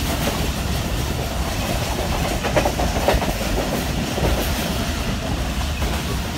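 Passenger train running at speed, heard from aboard: a steady rumble and rush of wheels on track, with a few sharper clacks about halfway through.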